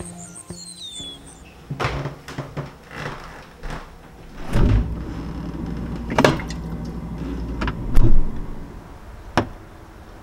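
Knocks and thumps of a refrigerator door being opened and shut and an aluminium drink can being taken off the shelf and set down. The loudest thump comes about eight seconds in.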